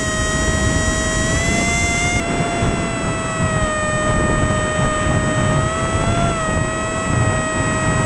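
Brushless 2205 2300kv motor spinning a 5045 propeller in flight, a high steady whine that shifts slightly in pitch with the throttle, over wind rushing across the onboard camera's microphone.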